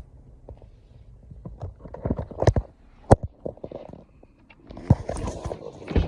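Irregular knocks and clunks, the sharpest a little after two and three seconds in, then rustling and scraping near the end.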